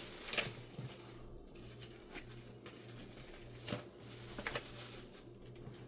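Quiet handling of a plastic-wrapped package of ground meat: soft rustling and a few light taps over a low steady hum.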